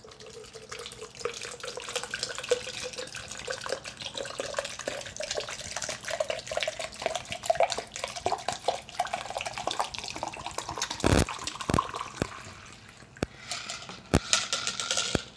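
Water poured in a steady stream from a shaker bottle into a plastic shaker cup, the filling note rising slowly in pitch as the cup fills. A few sharp knocks come late on.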